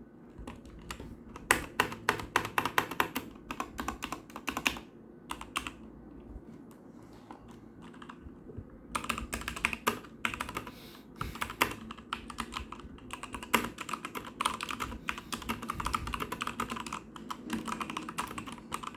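Typing on a Machenike K600 mechanical keyboard: fast runs of key clicks, a burst for a few seconds, a pause with only a few scattered keystrokes, then steady typing again from about halfway on.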